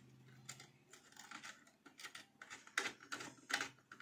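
A screwdriver turning the screw terminals of a switch-mode power supply's terminal block to clamp wires: a string of small irregular clicks and scrapes, a few sharper ones in the second half.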